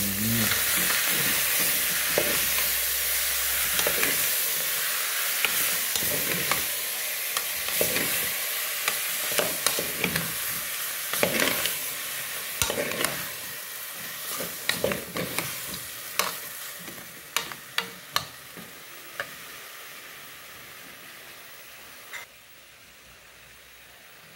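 Chicken pieces and sauce sizzling in an aluminium pot while a metal spoon stirs them, with frequent knocks and scrapes of the spoon against the pot. The sizzle fades gradually, and near the end only a few spoon knocks remain.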